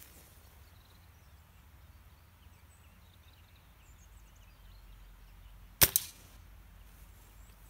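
A single shot from a Weihrauch HW97K .22 spring-piston air rifle: a sharp crack a little under six seconds in, followed about a fifth of a second later by a second, smaller crack, the pellet striking the steel knock-over target downrange. Faint birdsong before it.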